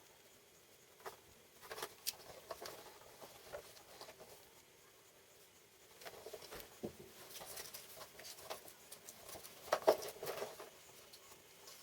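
Faint, irregular light clicks and taps, with a short cluster of louder ones about ten seconds in.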